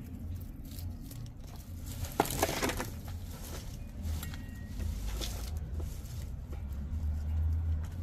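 Hands rummaging through loose compost, soil rustling and crumbling as potatoes are picked out, with a louder crackling scrape a little over two seconds in and a smaller one about five seconds in. A low steady rumble sits underneath.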